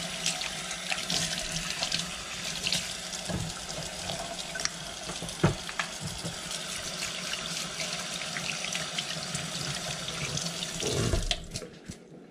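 Kitchen faucet running into a stainless steel sink while hands are washed under it, with a few short knocks against the sink. The water stops near the end.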